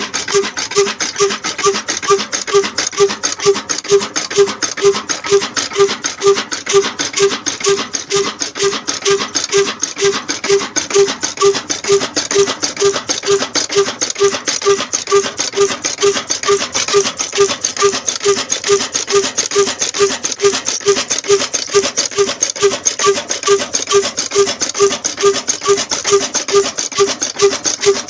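Large old slow-speed Ruston-type diesel engine running steadily, with an even puffing beat of about two to three strokes a second.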